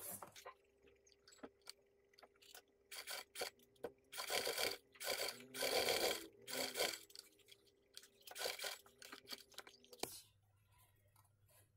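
Electric sewing machine stitching a fabric lining seam in several short bursts, with fabric rustling, over a steady motor hum that cuts off with a click near the end.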